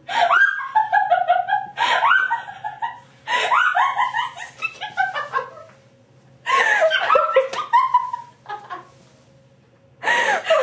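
A woman's hyena-like laugh: loud, high whooping peals that swoop up and down in pitch, coming in bouts with short breaks, and falling quiet briefly about six seconds in and again about nine seconds in before starting up once more.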